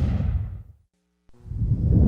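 Two whoosh transition sound effects: the first sweeps down and fades out within the first second, and after a short silence a second swells up and cuts off suddenly at the end.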